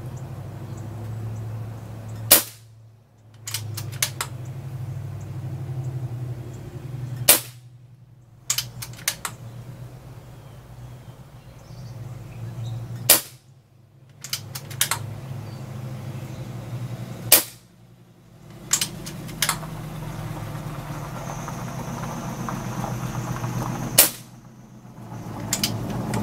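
Umarex Gauntlet .22 PCP air rifle fired five times, a few seconds apart, each shot a sharp crack, most followed by a few lighter clicks.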